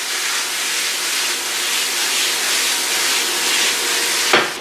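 Prawns and masala sauce sizzling in a hot frying pan as they are tossed with tongs, a steady hiss; a sharp knock near the end.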